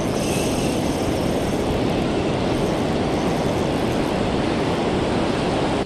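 Steady rush of surf washing over the sand, mixed with wind on the microphone.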